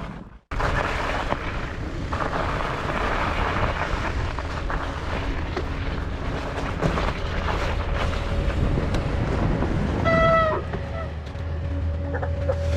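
Steady rushing noise of a fat bike being ridden through snow, with wind on the microphone. A short squeal comes about ten seconds in, and a steady low engine-like hum comes in near the end.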